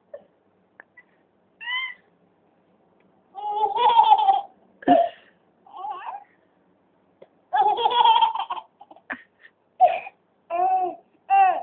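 Baby laughing in about eight short, high-pitched bursts of giggles and squeals, with pauses between them.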